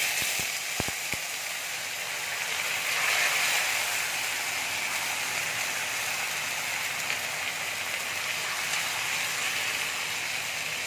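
Ground cumin-and-chilli paste sizzling steadily in hot oil in a wok, frying with whole spices, with a few light clicks in the first second. The sizzle swells a little about three seconds in and then holds.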